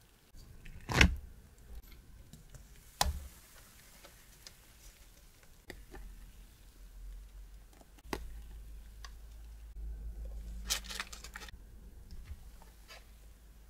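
Batter-making sounds: a rubber spatula knocks sharply twice on a stainless steel mixing bowl, the louder about a second in. Then come soft clicks and, near the end, a brief rustle as a plastic bench scraper spreads chocolate sponge batter over a parchment-lined baking tray.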